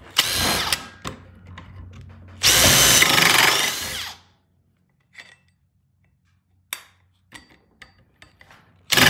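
Power drill with a twist bit boring into a wooden board, run in bursts: a short run just after the start, a longer run of about two seconds with the motor pitch rising and falling, and another run starting near the end. A few short knocks fall in the quiet gap between runs.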